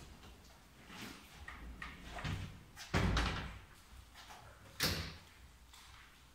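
A heavy plywood workbench on casters rolled out over a concrete floor: a low rumble of the wheels with small knocks, a heavy thud about three seconds in, and a sharp knock about a second and a half later.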